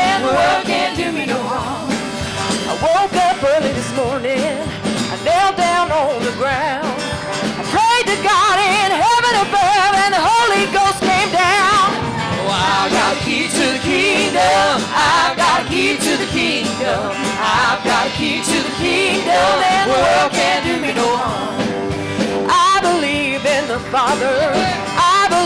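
Live gospel worship song: a church band playing an upbeat number with singers carrying the melody.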